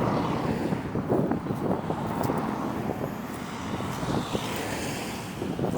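Road traffic passing close by: engine and tyre noise, with one vehicle's tyre hiss swelling and fading past near the end.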